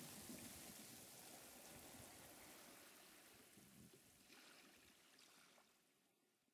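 Faint wash of sea surf, a steady noise that fades out to near silence.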